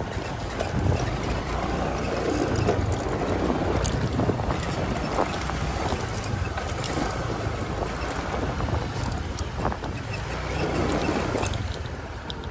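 Wind rushing over the microphone with the low, steady rumble of a road vehicle underway.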